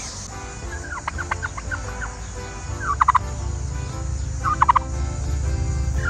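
Domestic turkey tom gobbling three times in short, rapid rattling bursts, about a second in, at about three seconds and near five seconds, over a steady low rumble.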